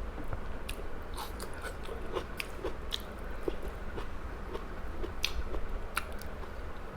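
A person chewing and biting food close to the microphone, with irregular wet mouth clicks and small crunches, over a steady low hum.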